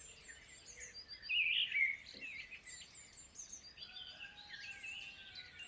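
Small birds chirping and twittering in a faint background of birdsong, with a louder run of chirps a little over a second in.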